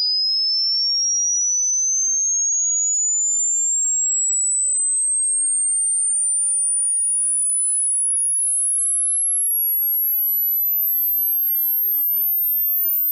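Test-tone frequency sweep: a single pure sine tone at steady loudness, gliding smoothly up in pitch from about 5 kHz to about 14 kHz. It plays in the left channel only.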